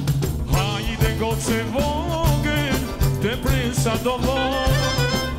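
Live Albanian folk band playing, with a steady beat from frame drum and bass, and a male voice coming in about half a second in, singing an ornamented, winding melody over the accordion.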